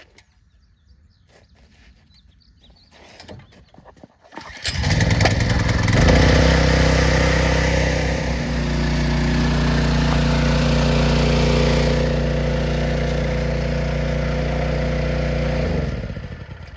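Small pull-start gasoline engine on a primed water pump catching about four and a half seconds in and then running steadily at one speed for about ten seconds before it shuts off near the end.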